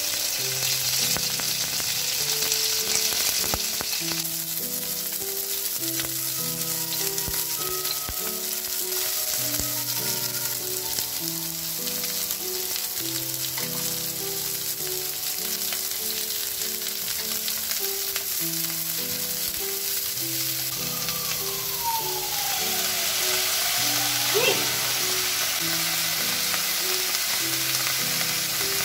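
Sliced bamboo shoots, celery, carrot and onion sizzling steadily in hot oil in a frying pan as they are stir-fried. A quiet melody of background music plays alongside.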